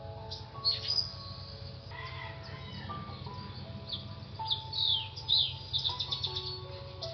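Small birds chirping in quick, high, down-sweeping calls and short trills, busiest about five seconds in, over soft background music with long held notes.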